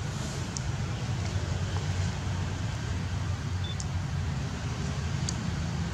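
Steady low rumbling background noise with a constant hiss, broken by a few faint, short high ticks.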